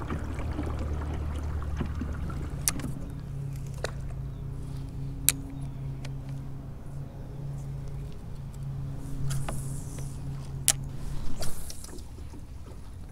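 A steady low mechanical hum that steps up in pitch about three seconds in and fades near the end, with a few sharp clicks.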